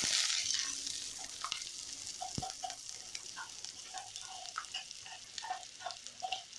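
Chopped onions and green chillies sizzling in hot oil in a pan just after going in. The sizzle is loud at first and gradually dies down, with small crackles and pops throughout and a single click about two and a half seconds in.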